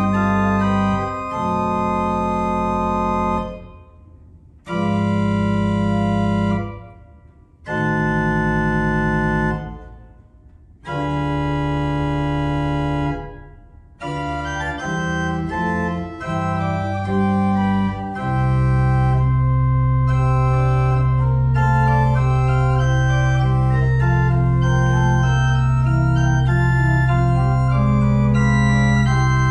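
Berghaus pipe organ (Op. 72, 1988) playing: four loud, full chords, each held about two seconds, with the sound dying away in the pauses between them. These are followed by quicker moving chords, and over the last eleven seconds a steady low pedal note is held beneath them.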